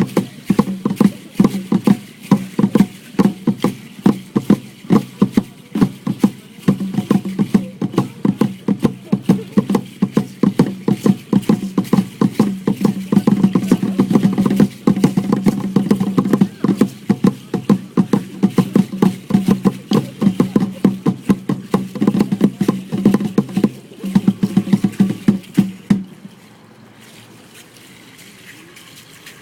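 Dance percussion: a dense, rapid clatter of rattling strokes over a steady low drone. It stops suddenly near the end.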